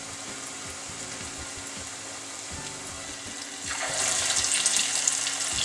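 Hot oil frying steadily in a small stainless saucepan. A little under four seconds in, a ball of courgette and chickpea-flour kofta batter goes into the oil and the sizzle jumps much louder.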